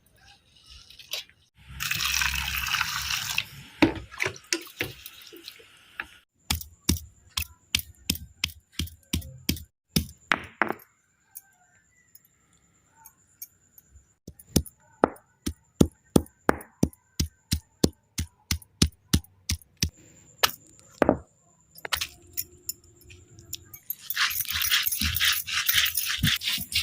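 Kitchen work sounds: many irregular sharp knocks and clinks, a few of them ringing like metal utensils, between two stretches of hissing noise near the start and near the end.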